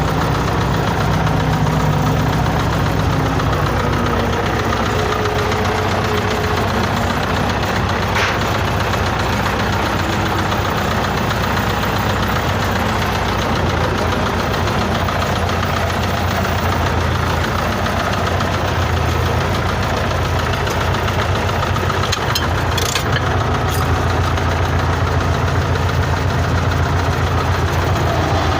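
Truck's diesel engine idling steadily with a knock. The owner has chased the knock for four years: it is not the camshaft key, and restoring the injection pump and changing the injectors did not cure it.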